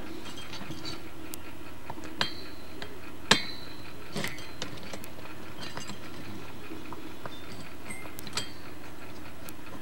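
Screwdriver working a small screw out of a CPU fan's heatsink mount: scattered light metallic clicks and taps, the sharpest about three seconds in, over a faint steady hum.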